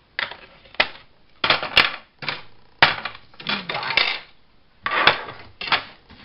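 Craft supplies being handled on a desk: a series of short clatters and sharp plastic clicks as a Distress ink pad and blending tool are set aside, with paper pieces rustling and sliding across the mat.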